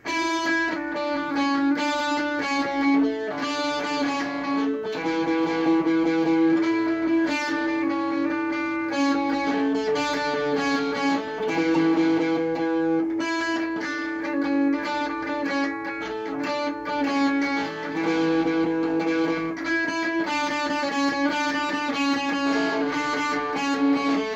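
Epiphone ES-333 semi-hollow electric guitar, amplified, playing a quickly picked single-note riff that keeps coming back to one ringing note, without a break.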